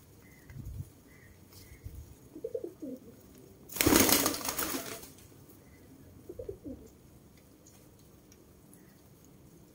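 Pigeons cooing: two short coos a few seconds apart, with a loud burst of noise lasting about a second between them.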